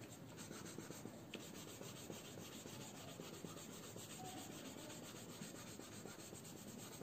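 Faint scratching of a white coloured pencil shading on paper in quick, repeated short strokes.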